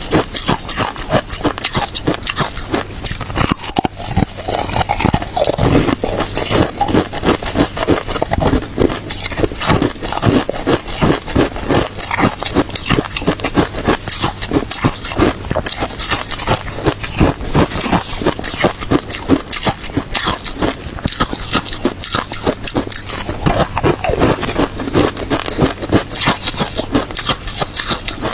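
Close-up crunching of shaved ice being bitten and chewed, a dense run of irregular crackling crunches.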